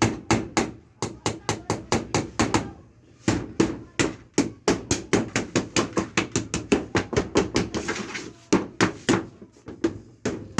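Hammer blows in quick succession, about three to four a second, with a short pause about three seconds in: carpentry hammering.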